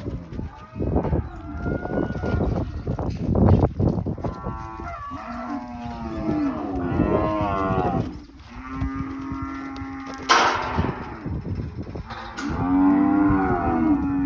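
Cattle mooing, with many calls overlapping and some long ones held steady. About ten seconds in there is one sharp crack.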